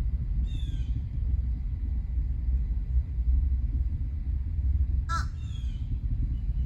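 Distant rumble of a SpaceX Falcon 9 rocket launch, a steady low rumble throughout. A bird calls twice over it, briefly about half a second in and more loudly about five seconds in.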